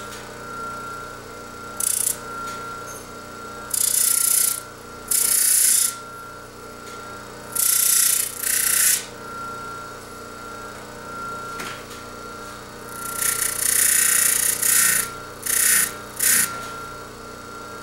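A motor-driven Scotch-Brite wheel spins with a steady hum, broken by short hissing grinds each time the titanium lockbar's carbidized end is pressed against it. The grinds come in clusters: single ones about 2, 4 and 5 seconds in, a pair around 8 seconds, and a longer run of several from about 13 to 16 seconds. They smooth the sharp peaks off the tungsten carbide deposit.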